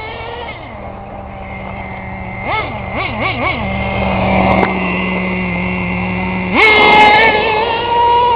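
Small nitro engine of a Team Associated RC10GT radio-controlled truck idling, blipped three or four times quickly a few seconds in, then opened up to high revs and held there near the end.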